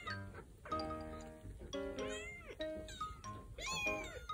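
Very young kittens mewing again and again, each call rising and falling in pitch, over background music.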